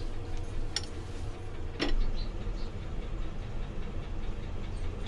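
Steady low rumble of background noise, with two short clicks about one and two seconds in.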